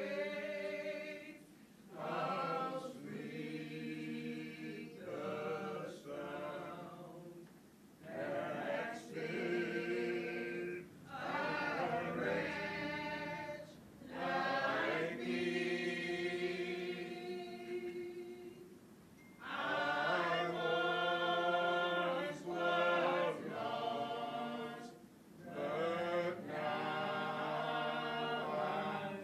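Choir singing slowly, with long held notes in phrases of a few seconds and short breaks between them.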